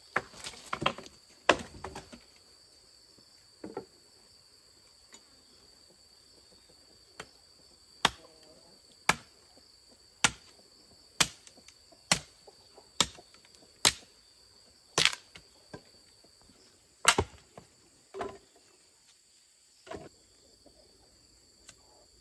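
A run of sharp knocks, about one a second for ten seconds, after a brief rustling clatter, with insects trilling steadily in the background.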